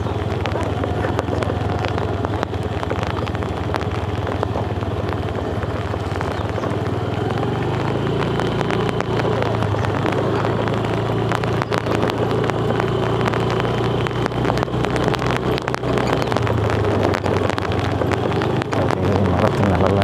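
Motorcycle engine running under way, its note rising about eight seconds in and falling back about sixteen seconds in, with a dense spatter of heavy rain and wind on the microphone.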